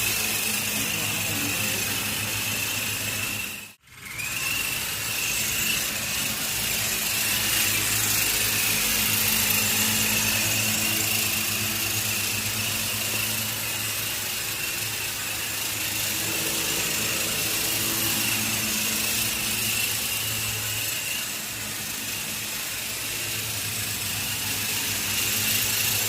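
Modified coaxial RC helicopter's small electric motors and rotors running with a steady high whine over a low hum. About four seconds in the sound cuts out briefly, and the whine then climbs back up to pitch as the motors spin up again.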